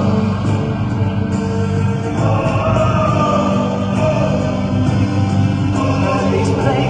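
Music with singing, a choir-like vocal over sustained instrumental chords.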